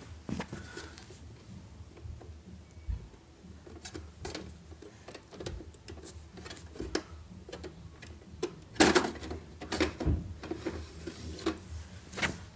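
Scattered clicks, taps and knocks of hard plastic and metal computer parts being handled while the RAM of a 2008 Mac Pro is worked on, with a louder cluster of clatter about nine seconds in and a sharp click near the end.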